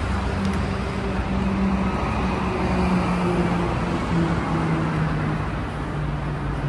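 City street traffic: vehicle engines and tyres running steadily, with a low engine hum that shifts slightly in pitch.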